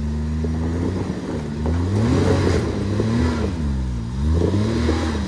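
Off-road vehicle engine idling, then revved in three short throttle blips, each rising and falling in pitch, as the driver feathers the throttle to crawl over a trail obstacle; it settles back to idle at the end.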